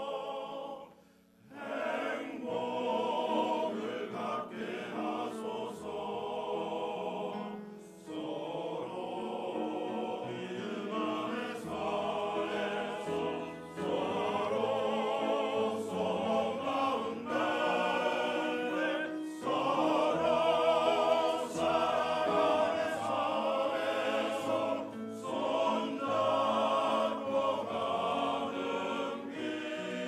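Church choir singing a hymn, the voices held out with vibrato, with a short break about a second in.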